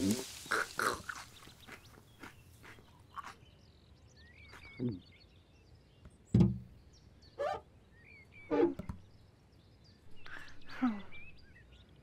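Short cartoon cat grunts and mews that slide up and down in pitch, a few at a time, with small bird chirps in between and one dull thump about six seconds in.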